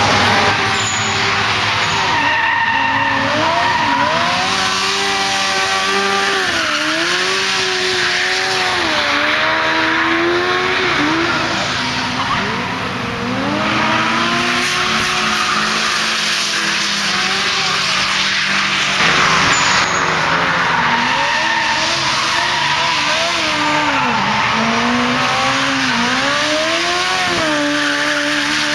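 Small 660 cc kei-car engines revving up and down, over and over, as the cars drift sideways through a tight corner, with tyres squealing and skidding on the asphalt.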